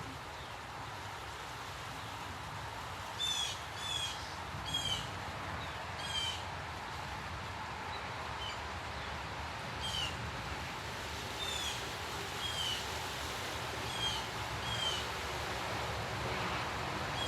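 A bird calling repeatedly: about a dozen short, slightly falling notes at irregular intervals, starting about three seconds in, over a steady low background of outdoor noise.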